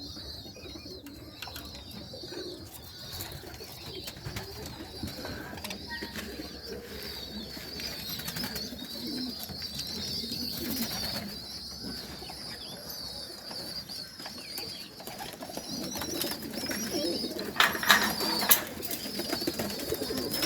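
Budgerigars chattering with a continuous high-pitched warble, while pigeons coo low underneath. A few sharp knocks sound near the end.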